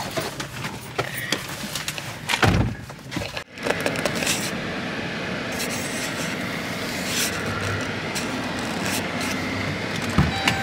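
Clicks and knocks, with a loud thump about two and a half seconds in. Then a steady hiss and low rumble of a car driving slowly across a grass field, heard from inside the cabin.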